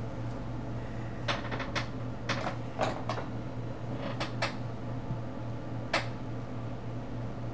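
About a dozen light clicks and taps at irregular intervals, from colouring tools being handled on a tabletop, over a steady low hum.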